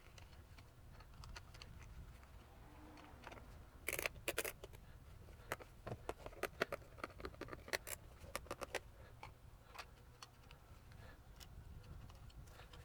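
A cluster of small, sharp clicks and taps, thickest between about four and nine seconds in, over a faint low hum.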